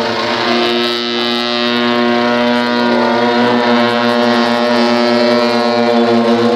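Tibetan long horns (dungchen) blowing a steady, low held note, with some shifting higher tones over it near the middle.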